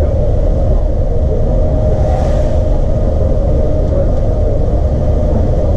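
Mercedes-Benz O405NÜ bus under way, its engine and road noise running steadily and strongest in the deep bass, with a brief hiss about two seconds in.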